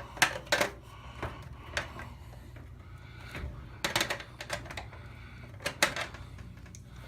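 Sharp clicks and taps of tools and small plastic and metal parts as a replacement wash-temperature rotary switch is worked into place in a washer's control console. Some of the clicks come in quick pairs, and there is a low steady hum underneath.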